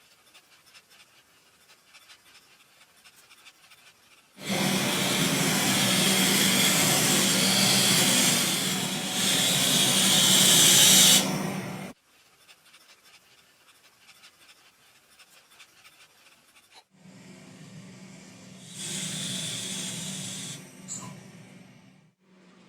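A machine with a steady low motor hum under a strong hiss, switched on for about seven seconds and cut off suddenly, then run again more briefly near the end.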